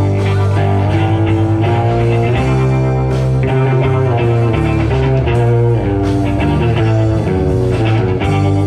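A live rock band playing an instrumental passage: electric guitar over bass guitar and drums, with sustained notes changing about once a second.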